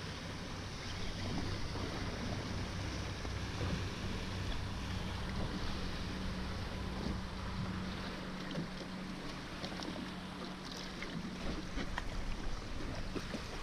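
Wind on the microphone and water around a small boat, under the steady low hum of a boat engine that fades about two-thirds of the way through. A few light clicks and knocks of tackle being handled come near the end, as the fish is brought alongside.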